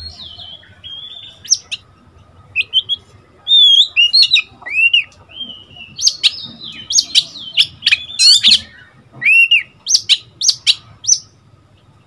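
A young Oriental magpie-robin singing: a varied run of loud whistled notes that slide up and down, mixed with sharp clicking notes, stopping shortly before the end.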